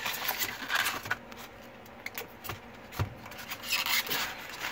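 Cables and a power adapter being pulled out of a styrofoam packaging insert: irregular rubbing and scraping against the foam, with a few light knocks.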